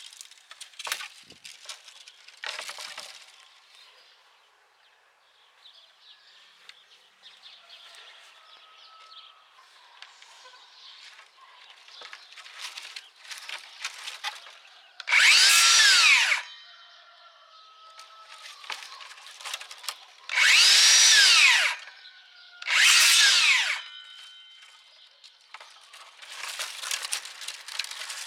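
DeWalt 60V FlexVolt DCS578 cordless circular saw cutting dry branches in three short runs of about one to one and a half seconds each. In each run the motor whines up in pitch, then winds quickly back down as the electric brake stops the blade. Between the runs, dry branches rustle and clatter as they are handled on the table.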